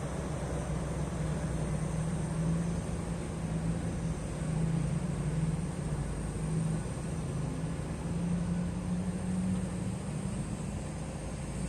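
Heavy mining-equipment diesel engine running steadily, a low drone that swells slightly a few times as the machine works.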